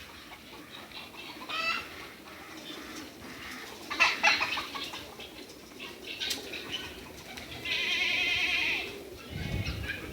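Poultry calling: short scattered squawks, then one longer, wavering call lasting over a second near the end.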